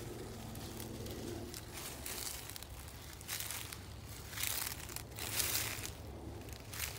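Footsteps crunching through a thick layer of dry fallen leaves, a crisp crackle with each step about once a second.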